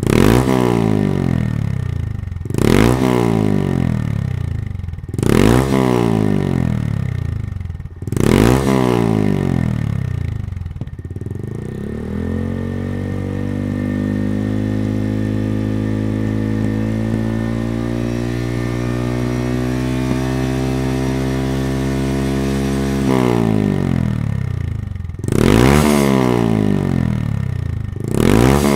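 Honda Monkey 125's air-cooled single-cylinder engine through a Yoshimura GP-Magnum full exhaust system, blipped four times with the revs falling back after each. It is then held at a steady, slowly rising engine speed for about ten seconds, and blipped three more times near the end.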